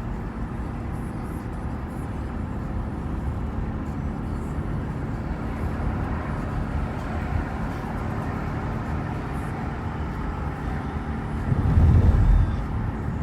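Car driving, with steady road and engine noise. A louder low rumble swells briefly near the end.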